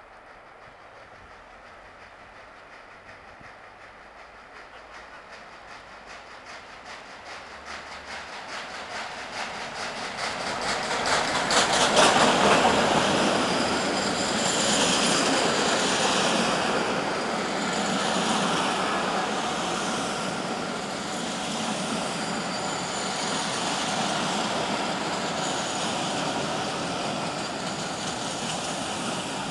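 Steam-hauled train, the Royal Scot class 4-6-0 steam locomotive 46115 and its Mk1 coaches, running into a station. It builds from a faint distant rumble to its loudest about twelve seconds in as the locomotive passes close by. The coaches then roll past with a repeated clatter of wheels over the rail joints.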